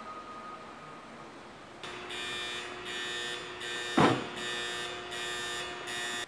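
A pulsing electronic warning alarm starts about two seconds in, sounding roughly once every three-quarters of a second. A single loud, sharp bang cuts through it about four seconds in.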